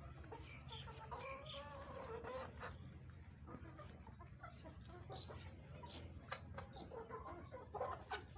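Chickens clucking, with many short calls and one longer drawn-out call about a second in, over a steady low hum.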